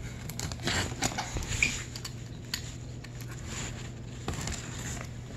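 Plastic shipping wrap on a parcel rustling and tapping as it is handled and slit open with a Stanley utility knife: a run of soft clicks and crinkles in the first second and a half, then a few more quieter ones, over a low steady hum.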